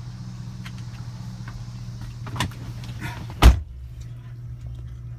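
2007 Chevrolet Avalanche engine idling steadily. A click comes about two and a half seconds in, then one heavy thump about a second later as a door shuts. After the thump the outside noise drops away and the steady idle hum remains.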